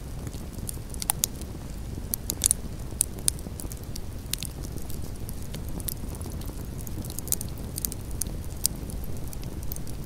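Campfire of burning logs crackling: irregular sharp pops and snaps over a steady low rush of flame, the loudest pops about one to three seconds in.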